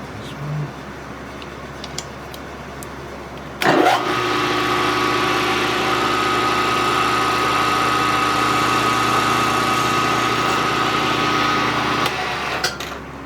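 Milling machine spindle switched on about four seconds in, running steadily with a steady whine while the boring head turns, then switched off and spinning down about twelve seconds in. A few light clicks come before and after.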